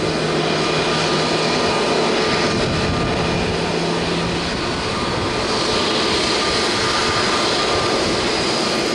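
Airbus A320-family airliners' jet engines running at taxi power: a steady rushing noise with a thin high whine. A low hum drops out about halfway through.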